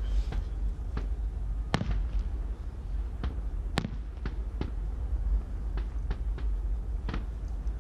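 Aerial firework shells bursting: about a dozen sharp bangs at irregular intervals, the loudest about two and four seconds in, over a steady low rumble.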